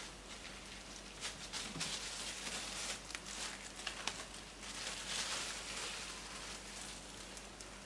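Thin plastic sheet rustling and crinkling as hands peel it off squares of dough, in soft irregular crackles, busiest a few seconds in.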